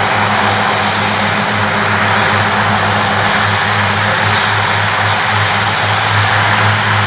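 Claas Cougar 1400 self-propelled mower at work, mowing grass: its diesel engine and mowing units running steadily under load, a constant low hum with a broad rushing noise over it.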